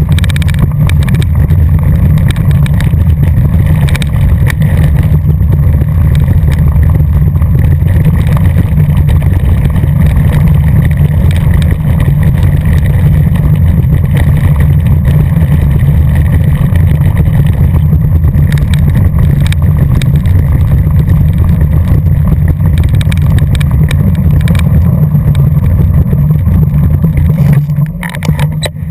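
Loud, steady low rumble of wind buffeting the microphone and mountain-bike tyres rolling over loose gravel during a fast descent, with faint crunches and ticks from the stones. The rumble drops away near the end as the bike comes to a stop.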